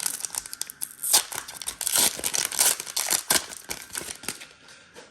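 Foil Pokémon booster pack wrapper crinkling and crackling as it is opened by hand, fading out near the end.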